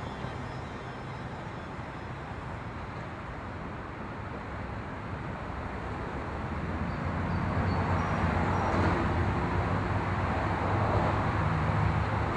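Steady rushing background noise, like distant traffic or wind, that swells louder about halfway through and fades out at the end.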